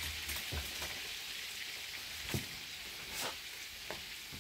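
Meat-and-cabbage cutlets sizzling steadily as they fry in a frying pan. A few light knocks, likely a spatula against the pan, sound as the cutlets are turned.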